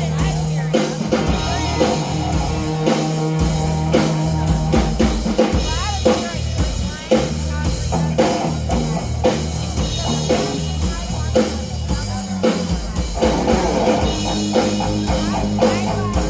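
Rock band playing an instrumental passage, with a drum kit keeping a steady beat over bass and electric guitar.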